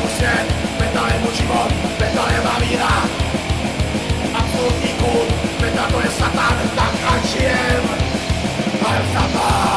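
Metal song with fast, evenly repeated kick-drum beats under dense instruments and harsh shouted vocals.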